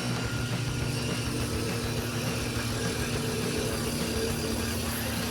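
Truck engine running steadily with a low, even hum.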